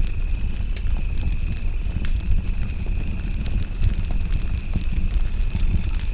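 Campfire crackling with scattered pops over a steady low rumble, while crickets chirp in a fast, continuous high-pitched trill and another insect keeps up a thin steady tone.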